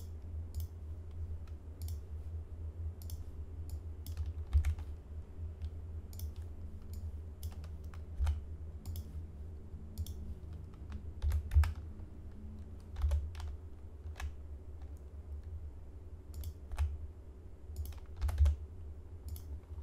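Scattered keystrokes and clicks on a computer keyboard at an irregular pace, a few of them louder, over a steady low hum.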